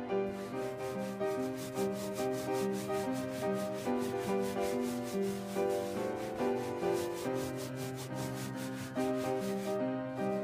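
A hand rubbing briskly back and forth over carpet pile, in quick raspy strokes several times a second that stop near the end, over background music with sustained changing notes.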